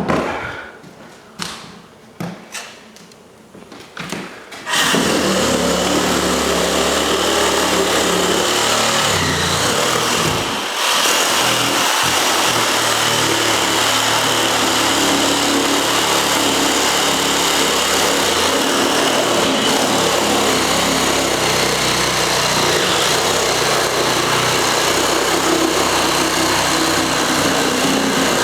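A few knocks and handling clicks, then about five seconds in a small electric motor switches on and runs steadily and loudly, with a brief dip about ten seconds in.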